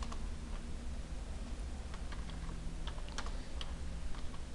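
Scattered clicks of computer keyboard keys and mouse buttons while drawing commands are entered in AutoCAD, over a low steady hum.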